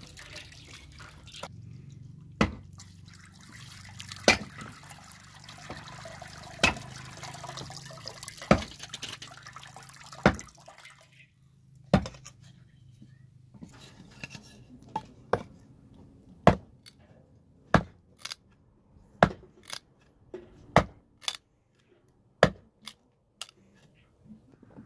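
Water sloshing and being poured as vegetables are washed by hand in a metal basin, with a sharp knock about every two seconds. In the second half, the knocks come faster, about one a second: a hatchet chopping firewood.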